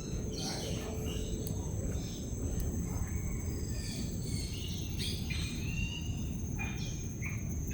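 Birds chirping and whistling in short, scattered calls over a steady high-pitched insect drone, with a low rumbling background noise throughout.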